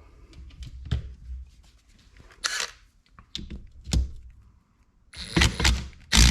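Small metal engine parts clicking and knocking as they are handled and fitted into a motorcycle crankcase, with a few short hissy bursts, the loudest near the end.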